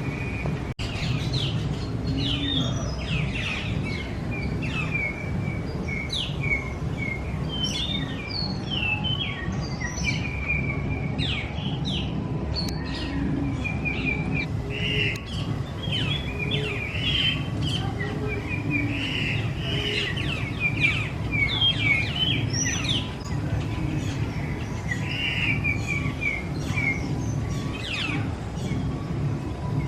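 Many small birds chirping and twittering in quick, overlapping calls, over a steady low background rumble.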